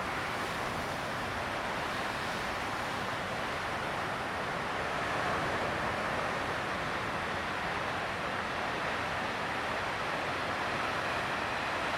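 Steady noise of ocean surf, with wind on the microphone.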